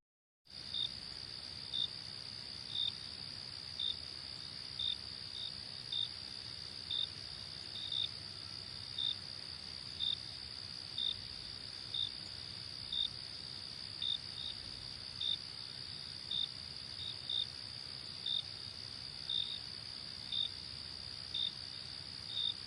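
Crickets chirping as a sound effect: a steady high trill with short, slightly louder chirps about once a second.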